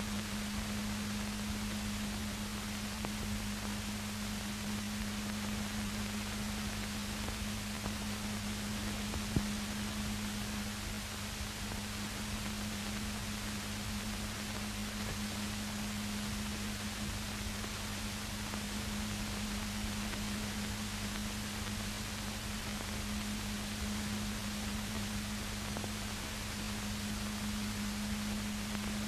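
Steady hiss with a low constant hum from the noise floor of an old film soundtrack, carrying no program sound, and one faint click about nine seconds in.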